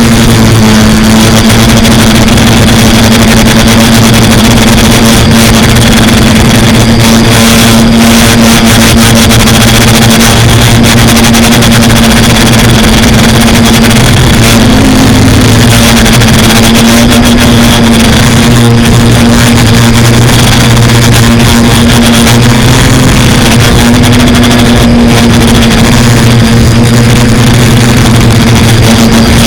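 Quadcopter's electric motors and propellers giving a loud, steady buzzing hum. The pitch wavers briefly about halfway through as the throttle changes.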